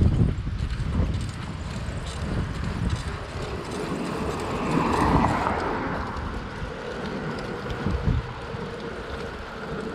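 Wind buffeting the microphone of a bicycle-mounted camera while riding, with low rumbling road noise. A car passes in the opposite direction, swelling and fading about halfway through.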